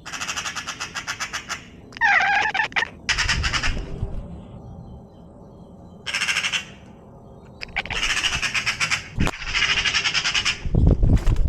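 An animal's harsh, rapid rattling calls in repeated bursts about a second long, with one gliding, falling call about two seconds in and a low thump or two near the end.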